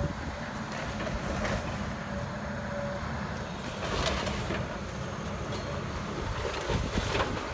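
Excavator engine running steadily under load while the bucket tears into a wooden house, with a steady hum and several crashes and cracks of breaking timber and debris, the biggest about four seconds in and near the end.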